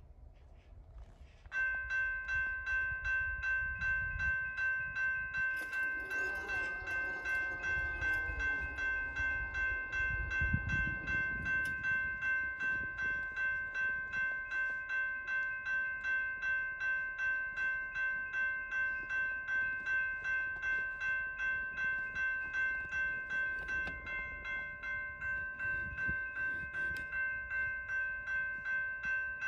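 Railroad grade-crossing warning bell ringing steadily, about two strokes a second, starting a second or two in as the crossing activates and the gate arms come down. Behind it, a lower sound falls in pitch over several seconds, ending in a low thump about ten seconds in.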